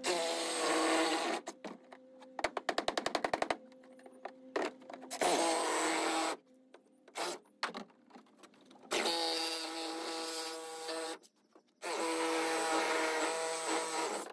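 Cordless power saw cutting into the wooden woodwork of a dinghy in four bursts of a few seconds each, the motor holding a steady pitch under the cutting noise. About two seconds in comes a quick run of even clicks.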